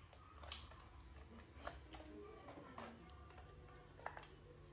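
Near silence, with room tone and a few faint, scattered clicks and taps of small objects being handled.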